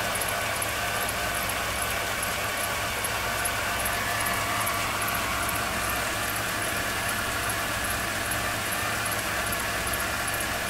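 2002 Chevrolet Silverado 2500 HD's gasoline V8 idling steadily under the open hood. A faint, high-pitched ticking repeats about four times a second over the engine's steady hum.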